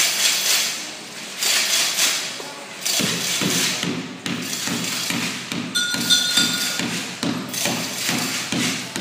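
Improvised percussion on household objects: a few swishing shakes, then from about three seconds in a steady beat of thumps, about two and a half a second, with a short glassy clink near the middle.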